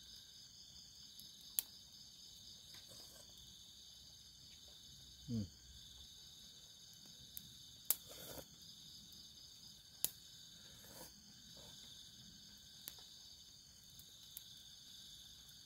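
Steady high chorus of night insects, with several sharp clicks a few seconds apart as an eating utensil taps the metal cooking pot. About five seconds in there is one short sound that falls in pitch.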